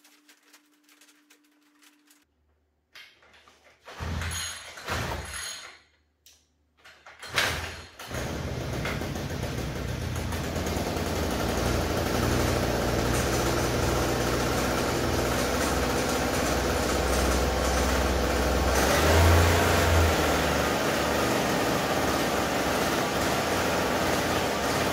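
Small brush-cutter-type petrol engine, fitted as a boat's outboard drive, being started: it fires briefly twice and dies, then catches about eight seconds in and keeps running steadily, revving up a little just before twenty seconds.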